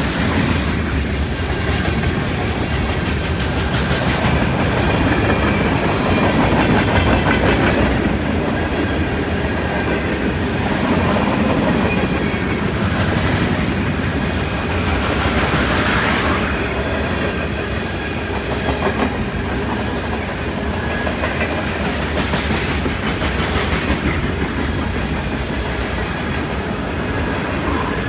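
Freight train cars rolling past close by, a steady run of wheels clicking over the rail joints.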